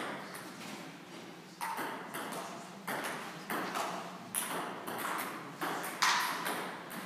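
Table tennis ball being hit by bats and bouncing on the table during a rally: sharp clicks at uneven gaps of about half a second to a second and a half, each with a short echo from the hall.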